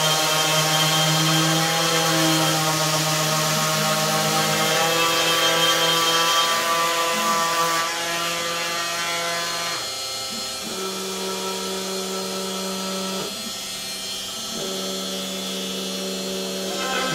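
DeWalt cordless random orbital sander running over wood, a steady motor whine with the gritty rub of sandpaper, sanding stain off the raised letters of a carved sign. About ten seconds in it drops in level and its pitch shifts.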